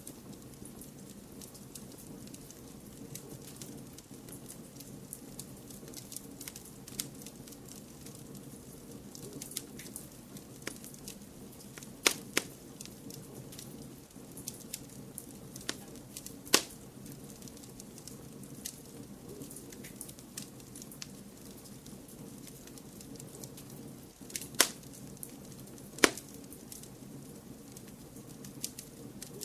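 Wood fire crackling, with scattered small snaps and four louder pops, about 12, 16.5, 24.5 and 26 seconds in, over a steady low background noise.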